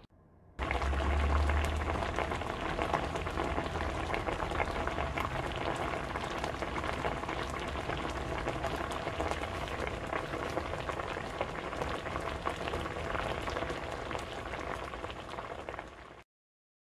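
A dense, steady crackling hiss full of tiny pops, like sizzling or heavy rain. It starts suddenly about half a second in, with a low rumble under it for the first couple of seconds, and cuts off abruptly near the end.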